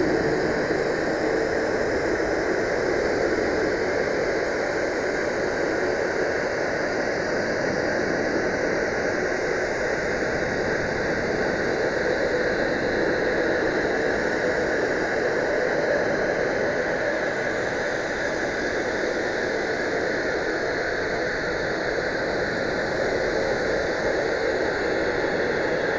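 Sci-fi sound effect: a steady, dense noisy drone that holds unchanged throughout, with no separate hits or pitch changes.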